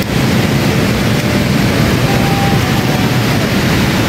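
Loud, steady rush of water pouring through the dam, swollen with monsoon rain.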